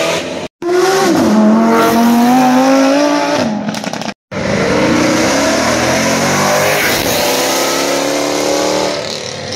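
Performance car engines revving hard as the cars accelerate, the revs climbing in two separate runs. The sound cuts out briefly twice, about half a second in and about four seconds in.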